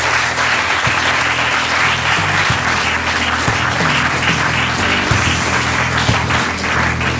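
Audience applauding at the end of a talk, with background music and its changing low notes playing underneath.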